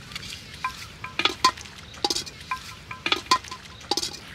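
Aluminium cooking pot knocking and clinking: about ten sharp metallic taps, several leaving a short ringing tone.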